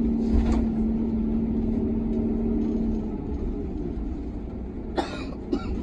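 Tour bus driving, heard from inside the cabin: a steady engine and road rumble with a low hum that fades out about three seconds in. Two brief clicks near the end.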